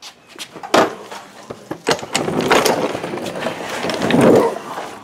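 Irregular metallic knocks and scraping as the hooks of a coil spring compressor are worked up inside a car's front coil spring: one sharp knock about a second in, then a longer stretch of dense clattering and scraping.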